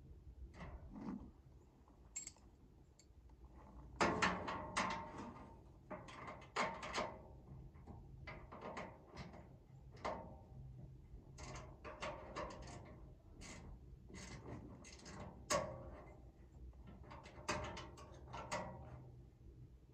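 Hand tools clicking and clanking against the under-step storage box's mounting bolts and nuts as they are tightened, in short irregular clusters of metallic knocks and scrapes.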